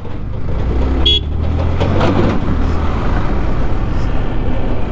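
Motorcycle running at low speed while being ridden, a steady low hum under wind noise on the rider's microphone, with a short high-pitched beep about a second in.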